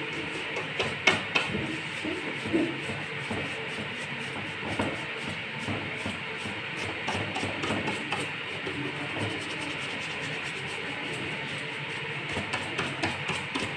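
Antiquing brush stroked repeatedly over wood, spreading dark chalked wax into the surface. It makes a continuous brushing rub, with a few sharp clicks about a second in.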